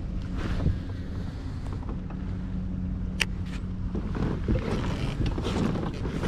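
Wind rumbling on the microphone of a kayak on open water, with water lapping at the hull and a low steady hum underneath. One sharp click comes about three seconds in.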